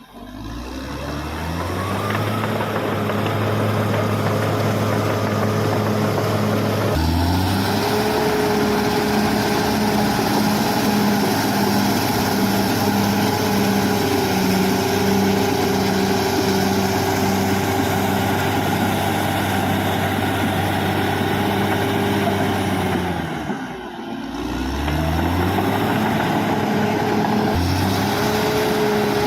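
Caterpillar D6R XL bulldozer's diesel engine running at steady working revs. It picks up over the first couple of seconds, changes note at about 7 s, then drops briefly and revs back up near 24 s.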